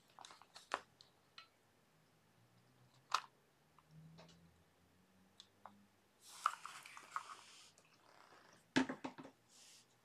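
Faint handling of a plastic battery box and wires on a board: scattered small clicks and taps, a scraping rustle about six seconds in, and a short cluster of knocks near the end as the box is set down in place.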